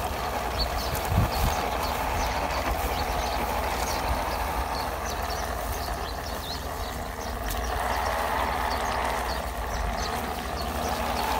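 Small electric motor and gearbox of a radio-controlled off-road truck whining steadily under load as it drives over grass and dirt into muddy water, with light crackling from the tyres. The whine goes higher from about eight seconds in.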